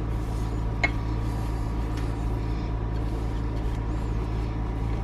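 Steady low machine hum with a faint constant whine, and a single sharp click about a second in.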